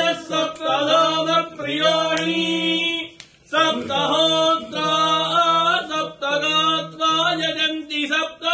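Hindu priests chanting Sanskrit mantras in a melodic, sung recitation, with notes held and slowly shifting in pitch and a short pause about three seconds in.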